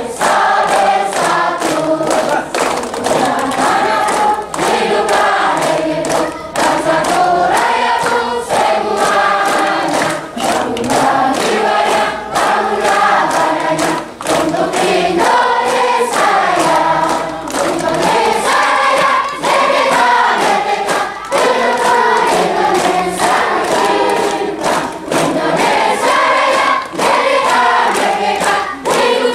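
A large group of children singing a song together, with many voices in unison.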